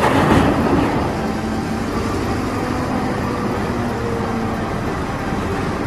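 Caterpillar 992G wheel loader's diesel engine running under load as its bucket dumps earth into a dump truck's bed. A rush of falling dirt is loudest in the first second, then the engine runs on steadily.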